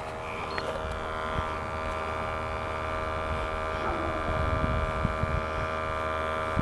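Small sampling pump of a Testo 320 combustion analyzer running with a steady hum as it draws in outside air for an ambient CO reading.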